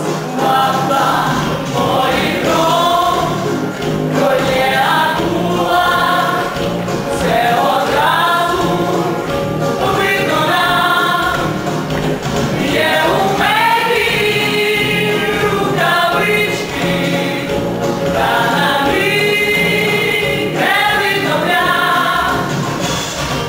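A group of voices singing a song in a stage musical number, over steady instrumental accompaniment.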